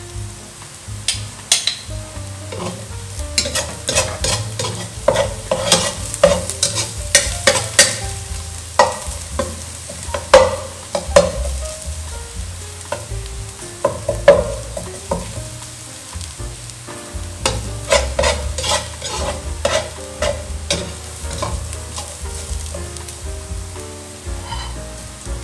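Minced garlic frying in oil in a nonstick pan while a metal spatula stirs it, scraping and knocking against the pan in quick, irregular runs of strokes, with a quieter stretch in the middle.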